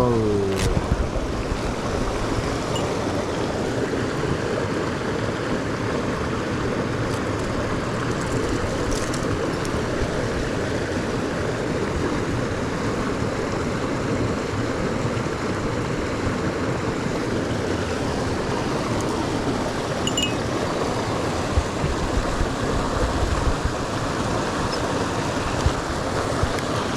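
Mountain stream water rushing in a steady wash, with a few light clicks in the last few seconds.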